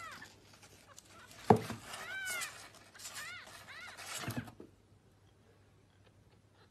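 Newborn kitten mewing in short, high, rising-and-falling cries, four or so times, with a sharp thump about one and a half seconds in. The cries stop about two-thirds of the way through.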